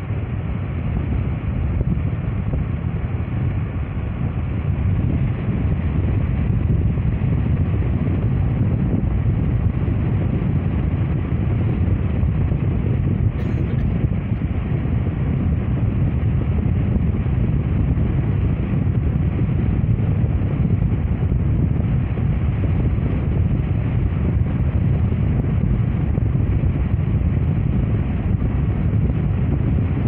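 Steady low rumble of a car driving along a road, road and wind noise heard from inside the moving car.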